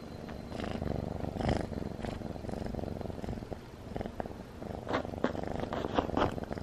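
Domestic cat purring steadily close by while being stroked, with a few short clicks in the second half.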